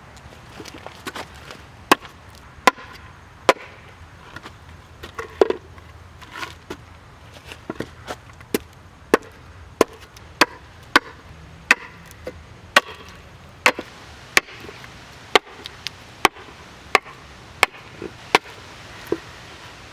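Axe chopping into an ambrosia maple bowl blank, shaping the outside: a steady run of sharp strikes, about one a second, some louder than others.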